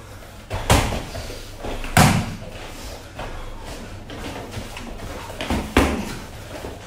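Gloved punches and kicks landing during kickboxing sparring: a few separate sharp smacks, the loudest about a second in, around two seconds in and near six seconds in, with lighter hits between.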